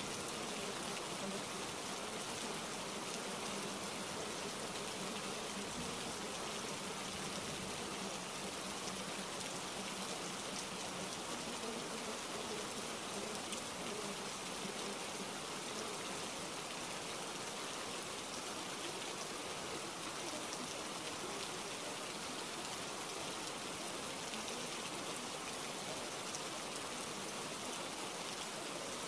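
Steady rain noise, an even hiss with no breaks or changes in level.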